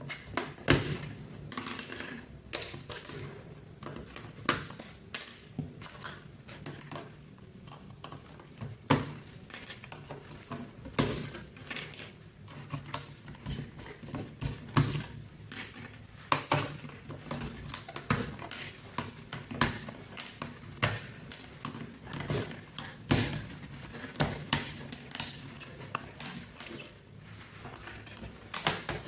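Irregular clicks and clatter of plastic keycaps being pried off a mechanical keyboard and knocking together, over a faint low hum.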